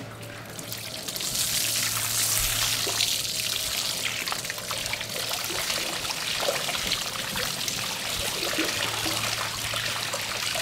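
Garden hose spraying water over a fish-cleaning table, rinsing blood off striped bass fillets: a steady splashing hiss that comes up about a second in.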